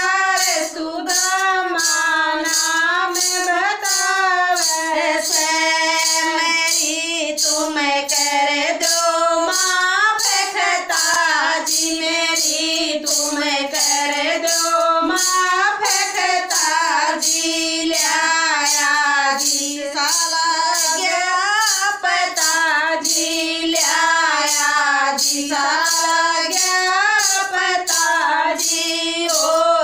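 Women singing a Hindi-Haryanvi devotional bhajan together, kept in time by a steady beat of sharp clacks, about two a second, from a hand-shaken plastic clapper and hand claps.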